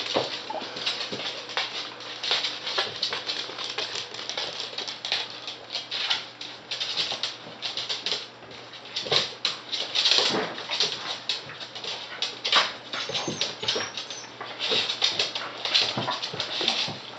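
West Highland white terriers playing on a hardwood floor: a constant irregular clicking and scrabbling of claws, with occasional short noises from the dogs.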